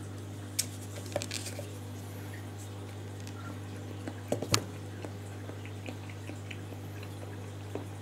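Chopsticks and a foam sashimi tray being handled on a metal table: scattered light clicks, with a louder short clatter about four and a half seconds in, over a steady low hum.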